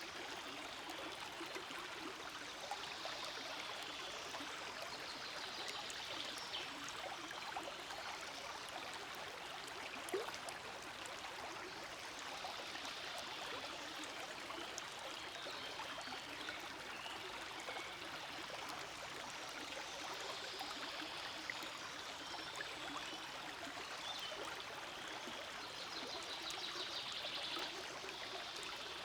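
Stream flowing steadily: an even rush and trickle of water, with one brief click about ten seconds in.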